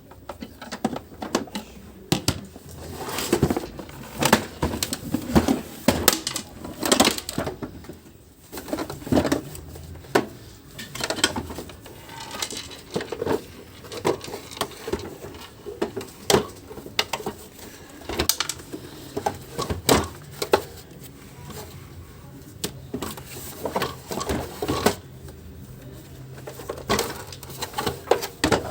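Irregular clicks, knocks and rattles of a screwdriver and the plastic housing of a Philips FC8950 vacuum cleaner as its screws are undone for disassembly.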